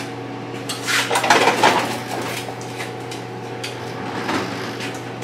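Loaded steel welding cart turned around by hand: irregular metallic clanking and rattling from its frame and the gear and cables hanging on it. The clatter is heaviest just after a second in and thins out toward the end.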